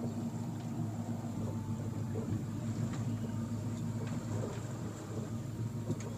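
Fishing boat's engine running with a steady low hum as the boat trolls, with a few faint ticks.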